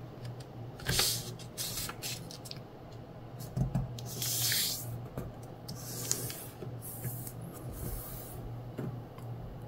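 A square sheet of origami paper being folded in half into a triangle and creased by hand: several short rustling swishes as the hands slide over the paper, the longest about four seconds in, with small taps and a steady low hum underneath.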